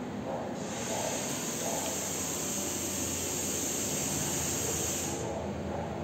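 Sauna steam generator hissing steadily, starting about half a second in and cutting off near the end, over a steady low rumble.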